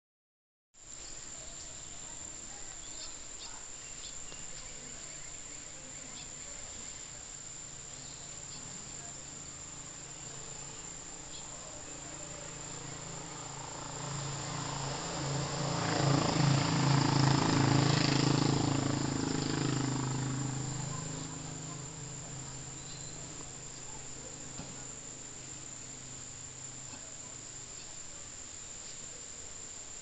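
Steady high-pitched drone of insects in tropical evening vegetation. About halfway through, a louder low sound swells up over a few seconds and fades away again.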